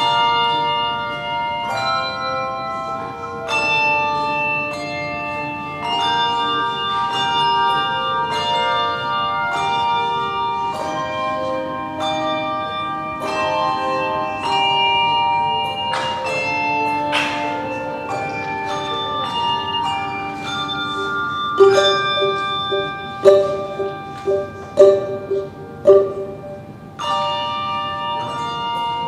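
Handbell choir playing: brass handbells struck in chords that ring on, with new chords every second or two. Near the end comes a run of short, loud accented strikes on lower bells.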